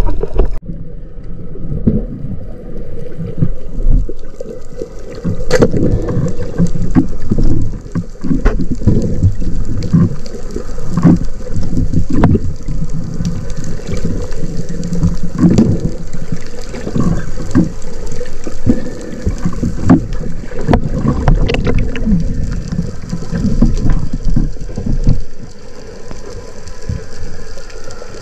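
Muffled underwater sound picked up through a camera housing: water rushing and sloshing over it with irregular low thumps as it moves, and occasional sharp clicks.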